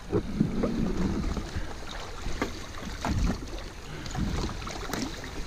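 Paddleboard moving through river water: a steady low rush of water and wind on the microphone, with scattered knocks of paddles and feet against the board.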